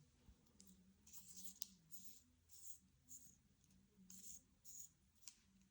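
Faint scraping and light ticks from a DLC-coated pen being unscrewed and taken apart by hand, its small parts rubbing and touching, with a sharper tick about a second and a half in and another near the end.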